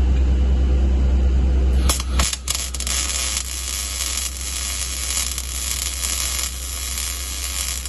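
A welding arc hisses and crackles steadily as a bead is run around the joint of a steel frame. It strikes with a few clicks about two seconds in. Before that there is a low steady hum.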